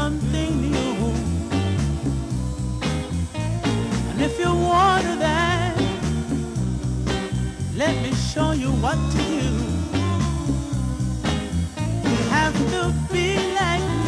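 Soul music from a small band, with a bass line moving from note to note under wavering melodic lines.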